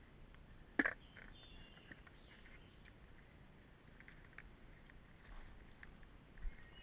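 Tools being handled at a plastic toolbox: one sharp click about a second in, then faint, scattered small clicks and knocks.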